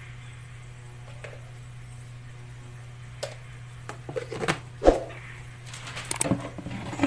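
Irregular clicks and knocks of a spoon or utensil against kitchen containers while cornstarch is scooped and added to the sauce, starting about three seconds in and loudest about five seconds in. A steady low hum runs under it.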